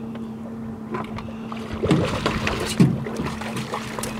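A blue catfish splashing at the water's surface as it is hauled up beside a jon boat on a hand line, with two louder splashes about two and three seconds in, over a steady low hum.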